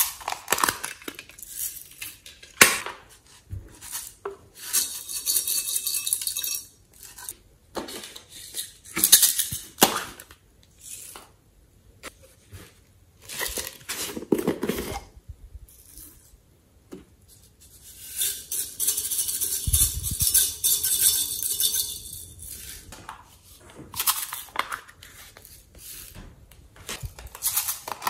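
Hard plastic containers handled over a glass dish: lids clicking and snapping, knocks against the dish, and two longer bouts of rattling, one about five seconds in and another around twenty seconds in.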